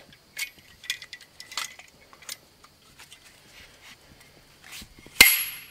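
Light clicks and rattles of a small piece of gear being handled and fitted together, ending in one sharp, loud click with a brief metallic ring about five seconds in.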